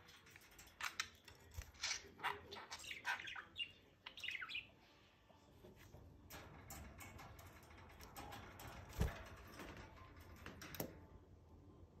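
Budgerigar chirping softly in short falling chirps through the first half, then going quiet. Two sharp knocks follow in the second half.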